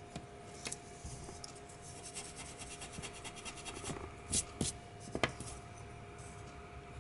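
Pencil scratching on paper in quick short strokes, then an eraser rubbed briefly against the paper twice, followed by a single sharp tap.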